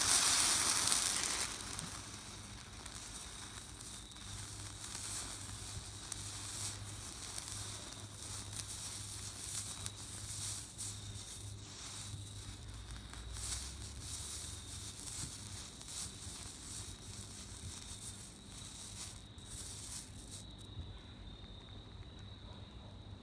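Thermite burning on an iPhone: a loud rushing hiss as it flares up in the first second or so, then steady sizzling and crackling. The high hiss falls away near the end.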